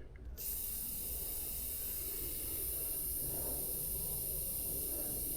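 Air hissing steadily out of the bike's inner tube through its valve, starting about half a second in. The tube is being partly deflated so the tire bead can be seated evenly on the rim.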